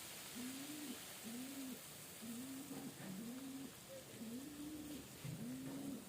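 A pigeon cooing: a low note that rises and falls, repeated about once a second.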